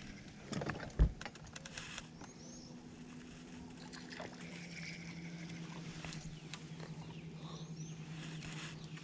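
A sharp knock on the boat about a second in, then a bass boat's electric trolling motor humming steadily from a little before halfway. A few short bird chirps sound over it.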